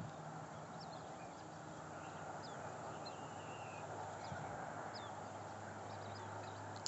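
Faint outdoor background hiss with a steady low drone underneath and small birds chirping now and then, one longer warbling call about three seconds in.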